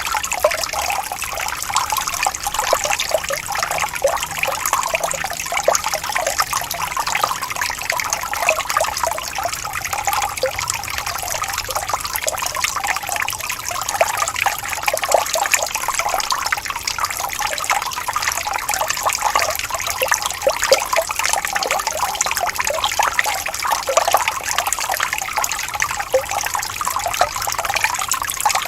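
Running water trickling and splashing steadily, a dense patter of small splashes with little deep rumble.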